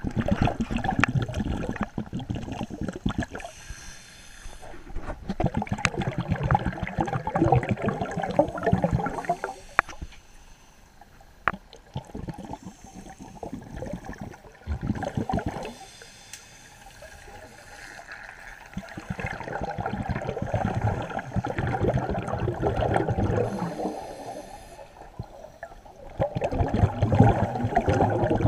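Scuba diver's exhaled bubbles rushing and crackling from the regulator, heard underwater, in about five long bursts with quieter pauses between breaths.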